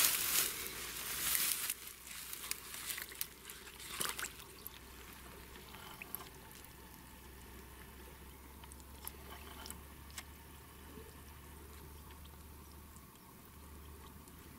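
Rustling and crackling in grass for about the first two seconds, with a sharp click about four seconds in, then faint outdoor quiet with a low steady hum and scattered small clicks.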